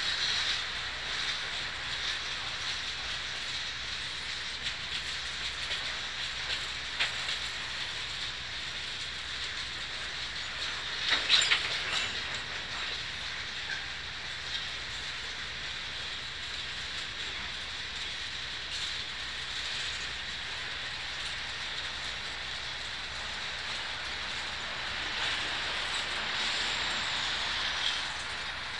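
Norfolk Southern freight train's gondola cars rolling past, steel wheels running on the rails with a steady high hiss. Scattered knocks from the wheels, the loudest cluster about eleven seconds in.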